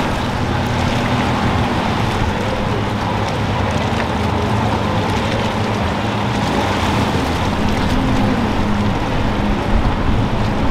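Outboard boat engines running steadily, with water rushing and waves washing, and wind buffeting the microphone.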